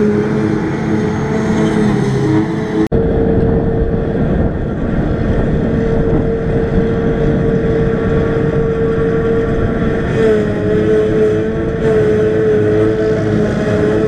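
Claas Jaguar 840 self-propelled forage harvester running under load while picking up grass for silage: a steady engine note with a steady high whine over it. The sound breaks off sharply for an instant about three seconds in, then runs on as before.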